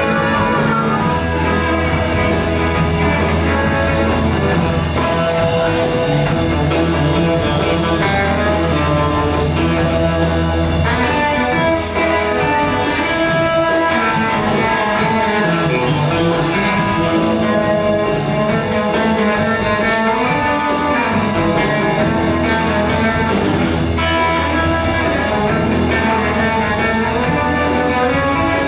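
Live electric blues band playing a 1950s-style blues number: electric guitars over upright double bass and drum kit, at a steady loud level.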